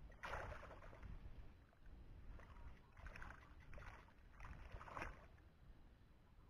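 Shallow muddy water splashing and sloshing in a handful of short bursts as a person wades and reaches into it by hand: one splash near the start, then several close together from about halfway through.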